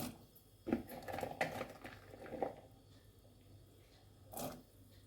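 Cauliflower florets dropped by hand into a pot of boiling water: a click at the start, a run of short plops and knocks from about one to two and a half seconds in, and one more near the end.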